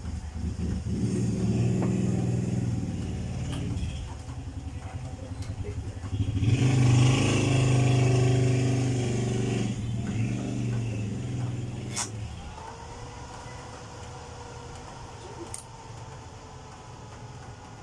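A motor vehicle's engine running and revving, building to its loudest in the middle and then fading away, with a single sharp click about twelve seconds in.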